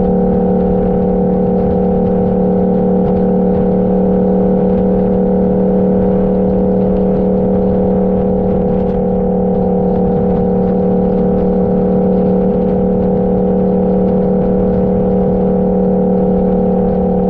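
Motorcycle engine running at a steady cruise, its pitch holding level throughout, with a low rumble of wind noise underneath.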